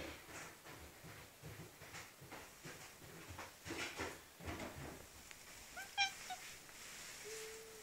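Domestic cat chirping and chattering in a dolphin-like way: a string of short breathy squeaks and clicks, with one clearer high-pitched chirp about six seconds in. This is the chatter the cat makes at birds or feathers.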